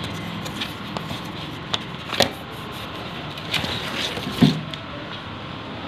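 Hands handling a new plastic-cased lead-acid battery in its cardboard box: a few scattered clicks and knocks over a steady background hiss. The sharpest click comes about two seconds in and a duller knock about four seconds in.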